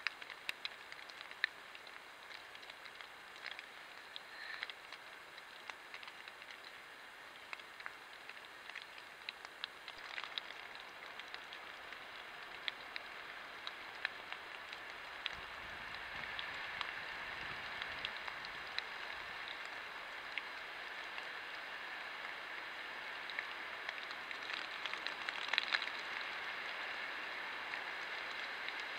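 Light rain pattering on the woodland leaves and the trail camera: a steady hiss scattered with small sharp drop ticks. It grows louder about halfway through.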